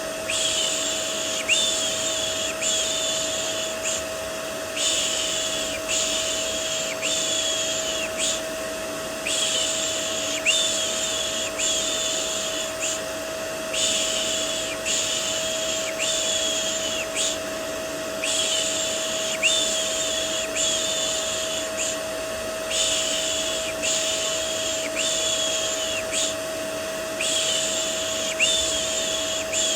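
Vacuum cleaner running steadily with a constant hum, overlaid by looped human shushing: quick 'shh-shh-shh' pulses in runs of three to four seconds, repeating about every four and a half seconds with short pauses between them.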